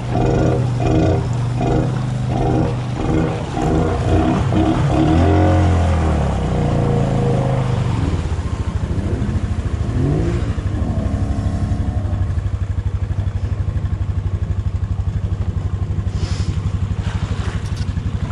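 ATV engine working hard in mud, its pitch climbing and falling for the first several seconds, then settling into a steady, even throb at lower revs.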